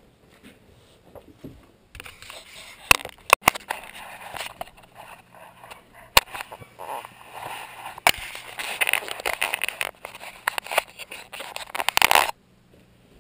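Handling noise from a GoPro camera being carried: fabric and hands rustling and scraping against the housing, with sharp knocks, stopping suddenly near the end.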